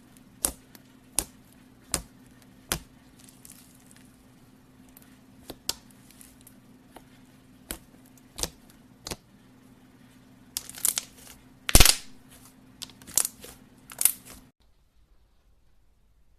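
Slime being pressed and played with by hand, giving sharp popping clicks: a row of evenly spaced pops, then a quicker, louder cluster near the end, over a faint steady low hum. The sound cuts off suddenly shortly before the end.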